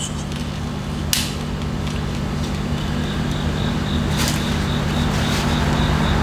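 Steady low motor hum that slowly grows louder, with two sharp clicks about one and four seconds in.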